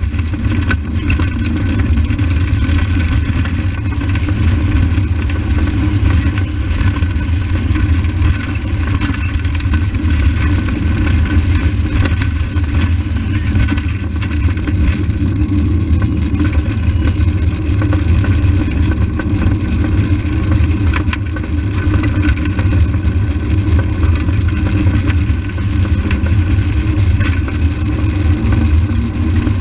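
Steady low rumble of a small soapbox-style cart's wheels rolling on asphalt, mixed with wind buffeting the onboard microphone, with a few brief knocks from jolts over the road.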